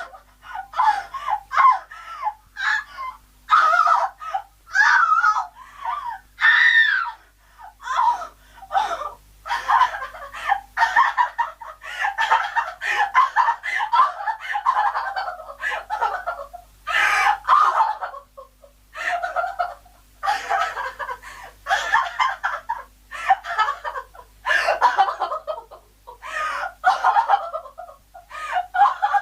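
A woman crying hysterically: sobs and gasping wails in short broken bursts, with one long unbroken wail in the middle.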